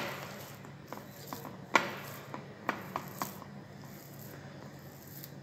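Metal potato masher working boiled potatoes in a bowl, knocking and clicking against the bowl: several sharp knocks in the first three seconds, the loudest about two seconds in, then only soft mashing.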